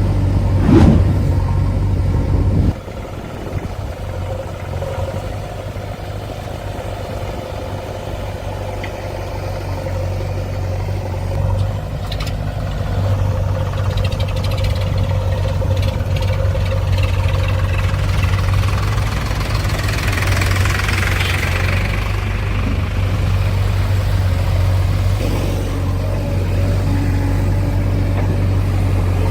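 Diesel engine of a heavy machine running steadily, with a sharp knock near the start. A few seconds in it drops suddenly to a lower level, then gradually builds back up.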